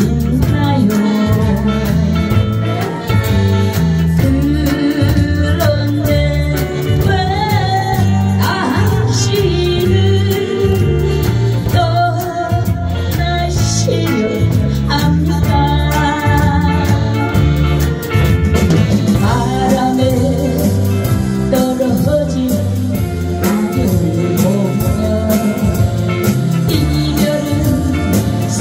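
A woman singing a Korean popular song live into a microphone, backed by a band of electric guitar, bass guitar, keyboard and drums, with a steady repeating bass line underneath the vocal melody.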